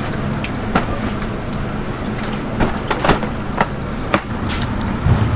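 Plastic crates of live loaches knocking and scraping as they are set down and handled, several sharp knocks over a steady low mechanical hum.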